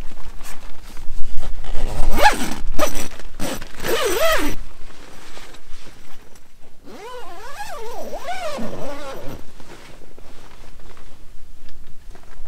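A tent door zipper being pulled in two long runs, its rasp rising and falling in pitch as the pull speeds up and slows around the curve of the door.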